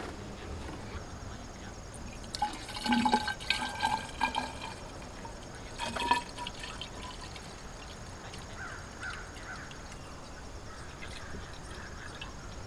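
Coolant being poured from a jug into the JCB skid steer's cooling system. The pour comes in louder, uneven bursts from a few seconds in until about halfway through. The system is low on coolant.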